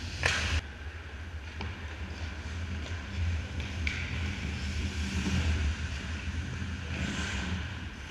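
Ice hockey skates scraping and carving on the ice during play, with a sharp scrape about half a second in and softer ones later, over a steady low rumble.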